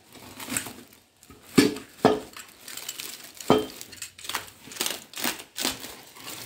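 A hand tool knocking, clinking and scraping as it cuts the rope binding on a woven plastic sack, with the sack crinkling. It is a run of sharp knocks, the loudest about one and a half, two and three and a half seconds in, with lighter ones after.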